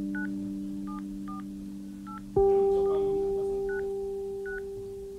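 Smartphone keypad tones as a phone number is tapped in: about seven short two-tone beeps at uneven intervals. Behind them, background music of long ringing notes, with a new, louder note struck about halfway through that slowly fades.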